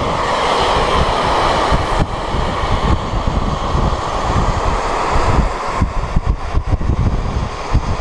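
A geothermal steam vent (fumarole) hissing steadily as steam jets out of the ground, like a kettle at a hard boil. Gusts of wind buffet the microphone, growing choppier in the last few seconds.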